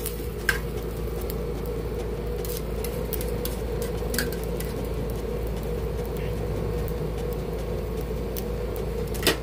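Steady mechanical hum with a few sharp metal clicks from tongs working on a flat-top griddle: one about half a second in, one around four seconds, and a louder one near the end.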